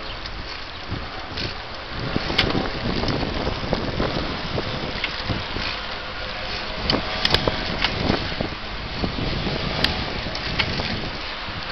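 Riding noise from a bicycle on a paved street: wind rushing over the microphone and a steady rumble from the ride. Sharp clicks and rattles come now and then, most of them bunched in the middle of the stretch.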